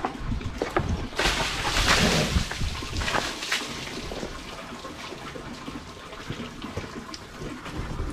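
A rush of splashing water about a second in, lasting roughly a second, followed by scattered drips and small knocks.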